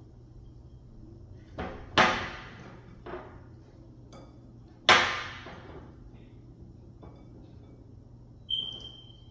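Two loud clanks about three seconds apart, each with a ringing tail, from the ceramic slime bowl knocking on the glass tabletop. A few softer knocks fall between them, and a short high ring comes near the end.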